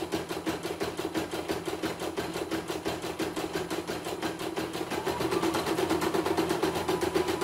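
CNY E900 portable embroidery machine stitching, its needle going up and down in a fast, even rhythm of clattering strokes. It grows a little louder about five seconds in.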